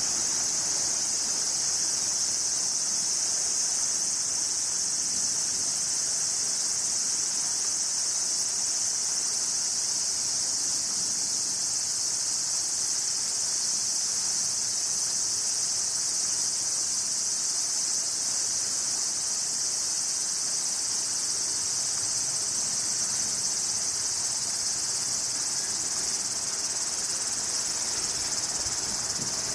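Cicadas buzzing in a steady, unbroken high-pitched chorus.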